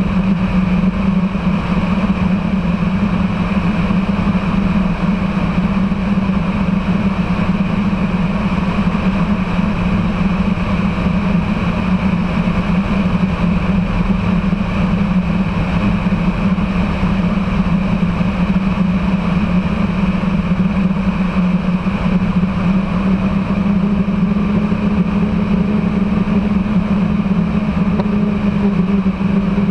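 Aeroprakt Foxbat light aircraft's engine and propeller running steadily in cruise flight, a constant drone. A faint higher tone joins in about three quarters of the way through.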